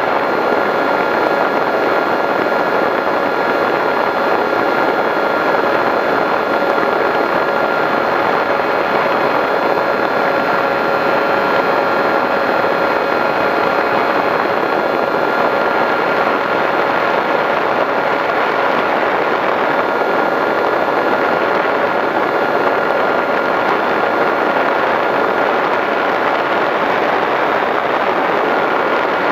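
Skywalker FPV plane's 910kv electric brushless motor and propeller running at a steady cruise throttle, picked up by the onboard camera: an unchanging motor tone over a rush of air.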